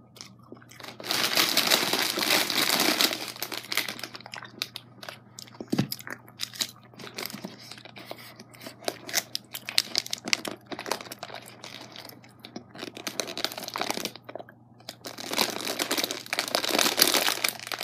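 Clear plastic bag of wrapped penny candy crinkling as it is handled, in loud rustling spells about a second in and again near the end, with lighter crackles in between.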